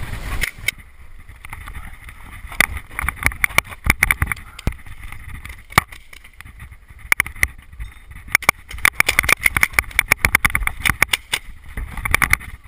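Paintball marker firing strings of sharp pops in quick succession, several shots a second. The shots come in a few bursts, the densest run about two-thirds of the way through.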